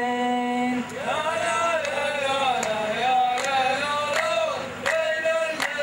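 A solo male voice holds the last sung note of a line of Saudi sung poetry, then a group of men chants the line back in unison. Sharp clap-like beats come about every three-quarters of a second.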